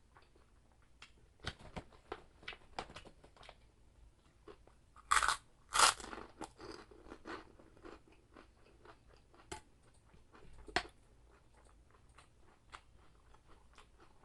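Close-up crunching and chewing of chicharabao, crispy fried carabao-skin cracklings. Scattered crackles run throughout, with loud crunching bites about five and six seconds in and another near eleven seconds.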